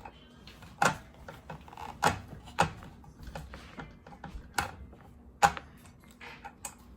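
Sharp metal clicks and knocks, about half a dozen at uneven intervals, as the blade, washer, bolt and wrench are handled and fitted on a cordless circular saw during a blade change.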